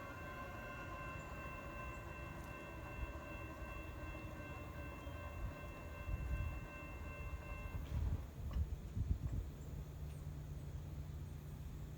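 Distant diesel locomotive horn holding one long, steady chord that cuts off suddenly about eight seconds in, over a low rumble. After that a low, steady drone of the approaching train's engines remains.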